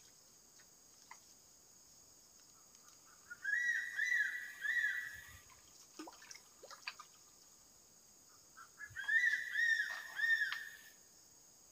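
A bird calling in two bouts of repeated arched, whistled notes, about three a second, the second bout starting near the middle. Insects keep up a steady high drone behind it, and a few light clicks come between the bouts.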